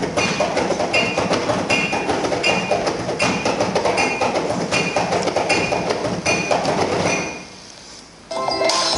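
Loud dance music with a steady, driving beat and a high blip repeating about every second, played over a hall sound system. It falls away about seven seconds in, and a different piece with sustained notes starts near the end.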